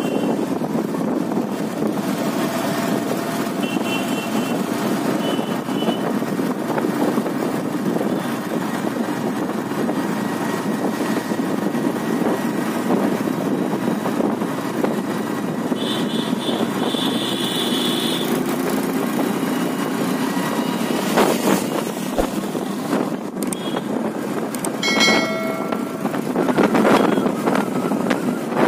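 Motorcycle ride heard from the bike: steady engine and road noise mixed with wind rushing over the microphone, as traffic passes. A few brief high beeps cut in about four seconds in, around the middle and near the end.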